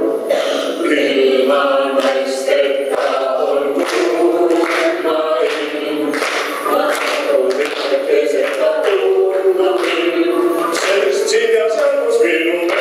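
Several voices singing together without instruments.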